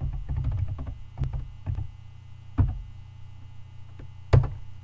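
Keystrokes on a computer keyboard as a password is typed at a terminal prompt: a quick run of clicks at the start, then a few single taps, and one sharper, louder key press near the end. A steady low electrical hum runs underneath.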